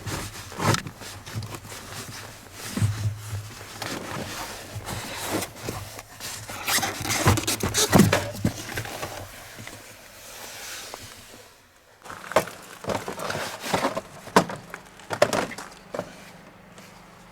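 Hands working on the cabin air filter and its surrounding trim: a run of sharp clicks and knocks with rustling and scraping between them, with a short pause about twelve seconds in.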